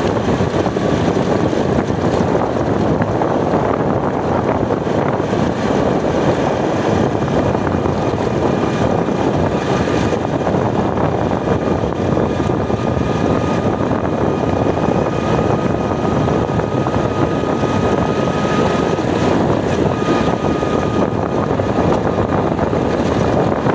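Motorcycle ride: a steady rush of wind over the phone microphone with the motorcycle's engine running underneath, and a faint steady whine.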